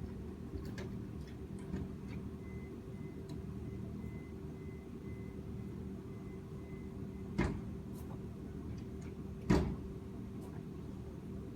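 Two sharp knocks about two seconds apart over a steady low hum, with a few faint clicks, consistent with hand work on the car during a brake pad change.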